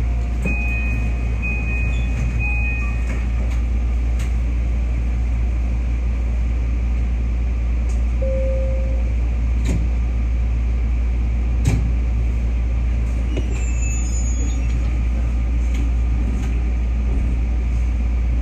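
Steady low hum inside the cab of a BEC819 DENCHA battery-electric train while it stands at a station. Three short high beeps sound in the first few seconds, a short lower tone follows later, and a single knock comes about two-thirds of the way through.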